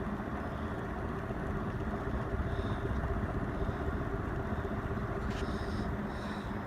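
Robbins and Myers 'sawtooth' 58-inch ceiling fan running on high speed: a steady rush of moving air with a low, even hum.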